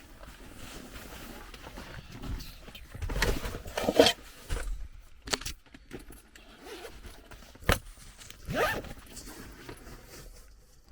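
Scattered rustling and handling noises in a car, loudest a little before halfway, with a sharp click and a short rising sound past the middle.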